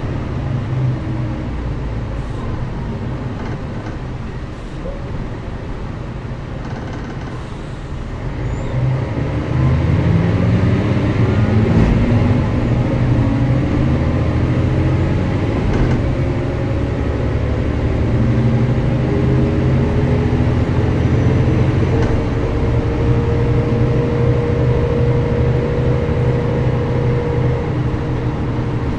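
Mercedes-Benz O405GN² articulated bus's diesel engine: running low and steady at first, then about a third of the way in it pulls away, its note rising in steps and getting louder, and settles into a steady higher note for the rest.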